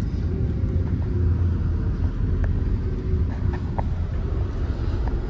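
Steady low rumble of a moving Chevrolet car's engine and tyres, heard from inside the cabin.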